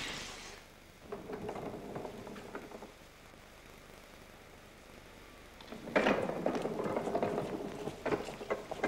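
A wheeled set of stage steps being rolled across a wooden stage floor, with footsteps. Faint at first, it gets louder from about six seconds in as the steps are pulled along, with knocks over a steady rumble.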